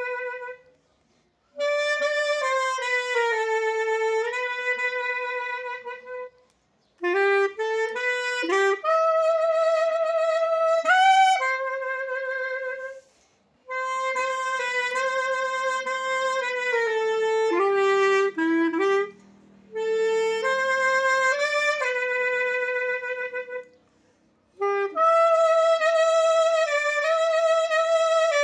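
Solo clarinet playing a slow hymn melody in phrases, with a slight vibrato on held notes and short pauses for breath between phrases.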